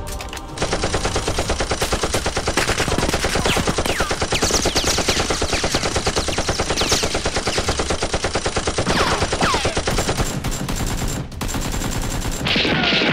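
Rapid automatic machine-gun fire, a sound effect laid over a Nerf blaster firing, in one long sustained burst that stops about ten seconds in. Falling whistle-like tones are scattered through the burst.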